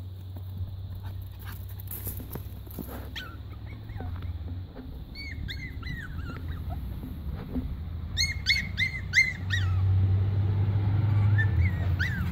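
Tibalier puppy (Tibetan spaniel × Cavalier King Charles spaniel) whimpering in short, high-pitched cries: a few about halfway through, then a quick run of about five a couple of seconds later. Under the cries is a low rumble that grows louder about three-quarters of the way in.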